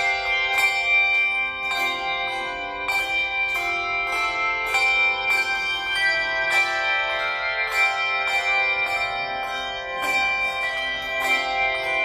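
Handbell choir ringing a melody, English handbells struck in a steady rhythm with each note ringing on and overlapping the next.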